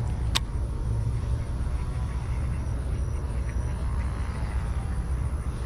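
Steady low outdoor rumble, with one sharp click about half a second in.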